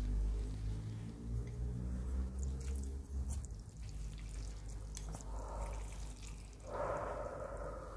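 Close-miked wet eating sounds from a bowl of spicy soup ramen: small wet clicks and a low rumble, then two slurps of noodles and broth in the second half, the second one near the end.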